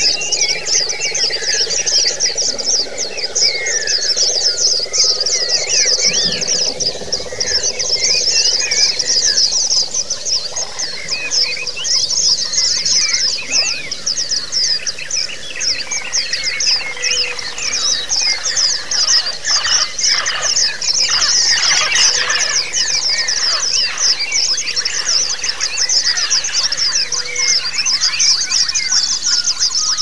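Several white-eyes (pleci) singing at once: a dense, unbroken high twittering of rapid overlapping notes. This is the long rolling 'ngalas' and 'ngerol' song used as audio therapy to train caged pleci.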